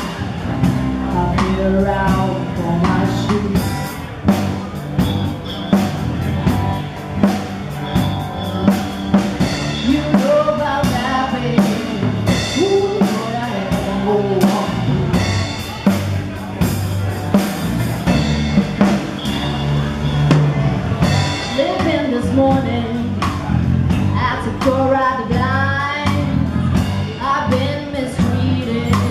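Live blues band playing a shuffle, with drum kit hits keeping the beat under bass and a wavering melodic line with bent notes.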